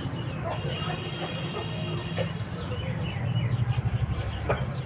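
Chickens clucking, with short high chirps and peeps scattered through, over a low, fast-pulsing rumble that grows louder about three seconds in.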